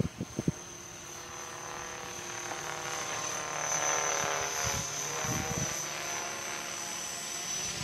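Electric radio-controlled aircraft flying by: a pitched motor-and-rotor whine that swells to its loudest about four seconds in, then eases off.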